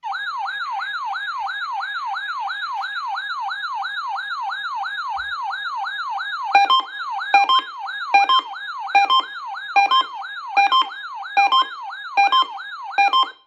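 Electronic alert siren: a warbling tone sweeping up and down about two and a half times a second. About halfway in, loud two-tone beeps join it, repeating roughly every three-quarters of a second. An alarm signal announcing a weather-radio required weekly test.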